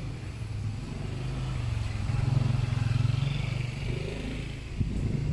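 A motor vehicle's engine passing on the road: a steady low hum that grows loudest two to three seconds in, then fades.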